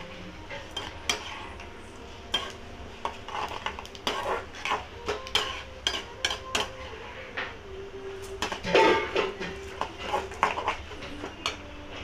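Metal spoon scraping and clinking against a metal kadai while stirring lentils roasting in a little oil: irregular scrapes and taps, the loudest about nine seconds in.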